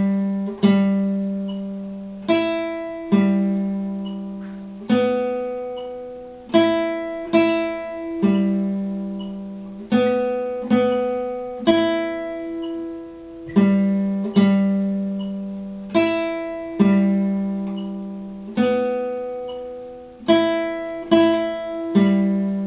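Nylon-string classical guitar played fingerstyle: slow plucked notes and chords, each struck about every second or two and left to ring and fade before the next.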